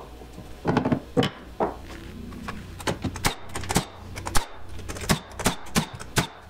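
Cordless nailer firing nails into a wooden stair riser: a quick series of sharp shots, about a dozen in the last three seconds, after a few knocks near the start.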